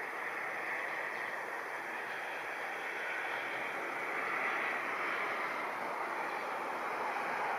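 Distant jet engines of an Embraer 175 regional jet on its landing approach: a steady rushing noise that slowly grows louder.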